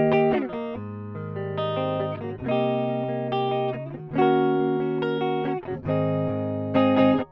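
Epiphone Les Paul Studio electric guitar played with a clean amp tone and both pickups selected: picked and strummed chords ring out and change about every second, stopping briefly right at the end.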